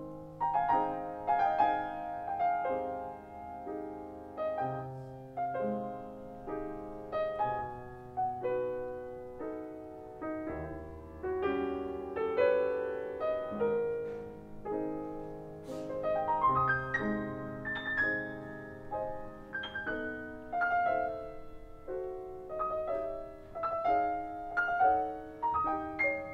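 Grand piano played solo: chords and melody notes struck at an even, unhurried pace over held bass notes, each note ringing and fading.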